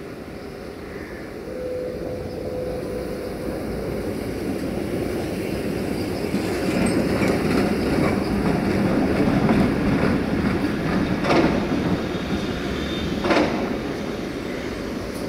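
Tatra KT4DM articulated tram passing close by, its wheels rumbling on the rails, growing louder and then easing off, with two sharp clacks from the wheels near the end.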